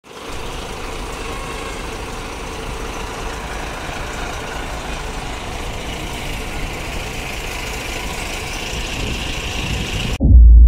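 Large coach buses' diesel engines idling, a steady rumble mixed with street noise. About ten seconds in it cuts off suddenly and is replaced by a much louder, deep booming tone.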